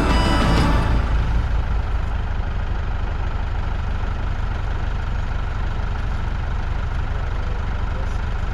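Background music fading out in the first second, then an engine idling steadily with a low, even rumble.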